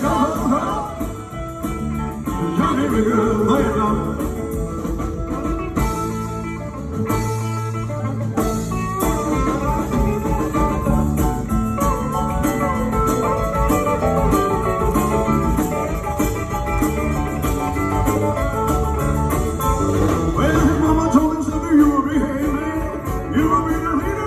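Live rock and roll band playing, with guitar to the fore.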